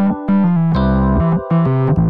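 Background music played on an electric piano, a run of short chords over a bass line.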